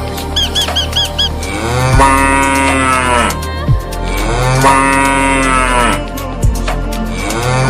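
Cow mooing: two long, drawn-out moos, with a third beginning near the end. A quick run of short chirps comes in the first second.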